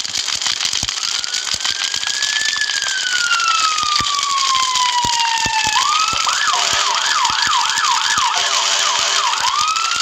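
An emergency siren sounding: one slow rise and long falling wail over the first six seconds, then a fast yelp of quick repeated rising sweeps. Throughout, it sits over a loud hiss with many sharp crackles.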